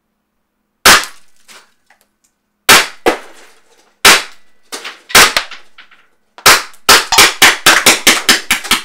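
Tiberius T8.1 CO2 paintball gun firing Bulls Breaker balls at a dummy head, each shot a sharp crack. A few single shots a second or so apart, then a rapid string of about five shots a second from about six and a half seconds in.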